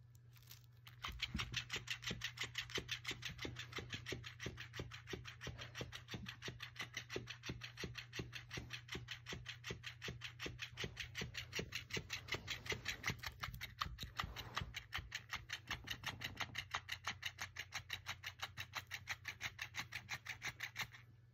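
Electric flopping fish toy flapping its tail in a steady rhythm, about four to five flaps a second. It starts suddenly and cuts off abruptly near the end.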